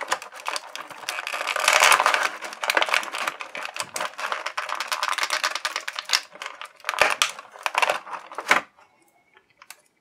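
Thin clear plastic blister tray crinkling and crackling, with many quick irregular clicks, as a tightly held action figure is pried out of its moulded slot feet first. The crackling stops about a second and a half before the end, leaving only a few faint ticks.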